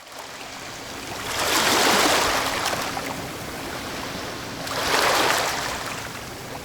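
Sea waves washing in twice, each swell of surf rising and then falling away.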